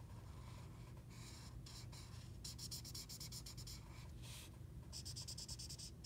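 Felt-tip marker scratching faintly across paper while colouring in an area, in spells of quick back-and-forth strokes, busiest around the middle and near the end.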